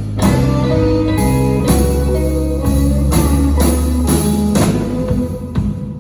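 Blues band of drums, bass and guitars playing an instrumental passage with no singing, the guitar to the fore over a steady drum beat and bass line.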